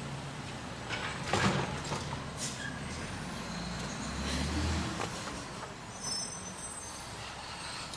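Garbage truck engine running steadily some way off, swelling louder for about a second near the middle, with a few short hisses.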